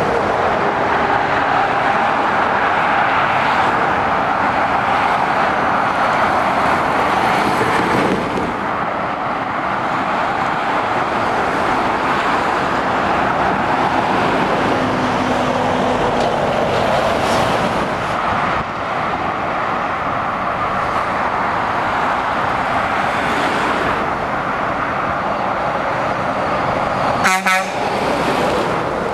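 Steady motorway traffic of lorries and cars passing: a continuous rush of tyres and engines. A short horn toot sounds near the end.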